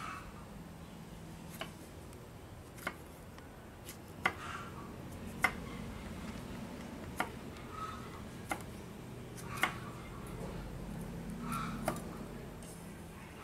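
Santoku knife chopping through red chilies and knocking on a wooden cutting board: sharp, separate taps, roughly one a second, uneven in spacing.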